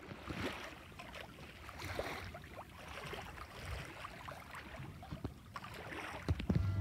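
Water swishing along the hull of a sailboat under sail, with scattered small knocks and creaks from the boat. A few louder thumps come near the end.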